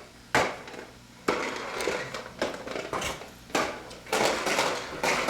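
Irregular clattering and knocking as a vacuum cleaner is pushed and bumped about.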